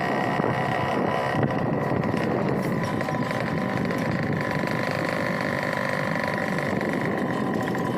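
Motor vehicle engine running steadily on the move, with road and wind noise.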